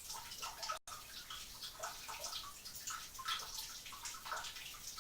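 Water trickling and splashing into a sump pit in irregular drips and gurgles as it fills around the new sump pump's float.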